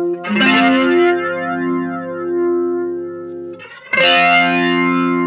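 Epiphone Les Paul electric guitar through a Mooer E-lady flanger into a Vox AC4TV amp: a chord strummed just after the start and again about four seconds in, each ringing out with a sweeping flange while the flanger's range control is set.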